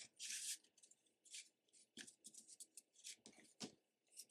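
Faint rustling and scraping of paper and cardstock as small paper-wrapped chocolate bars are slid into a cardstock sleeve, with a few soft taps about halfway through.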